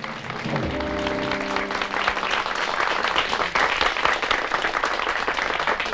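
Studio audience applauding, the clapping building from about a second in and continuing steadily. At the start a held chord sounds briefly on the piano, then stops.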